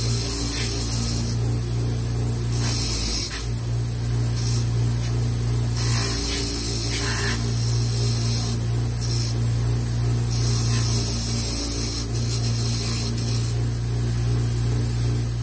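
Bench grinder with a wire wheel running steadily, with repeated bursts of scratchy hiss as steel bolts are pressed against the spinning wire brush to clean them.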